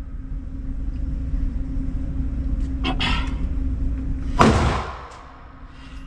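Steady low rumble with a constant hum. It is broken by a short crack about three seconds in and a louder sharp bang about four and a half seconds in.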